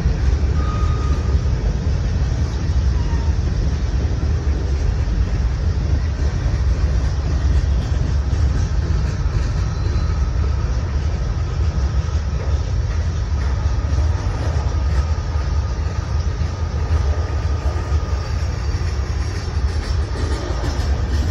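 Freight train cars rolling past close by: a steady low rumble of steel wheels on rail.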